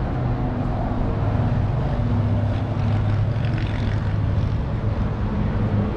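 Steady low motor hum with an even rushing noise behind it.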